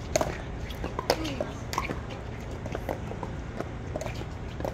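Scattered sharp pops of pickleball paddles striking balls, irregularly spaced, over faint voices and a steady low rumble.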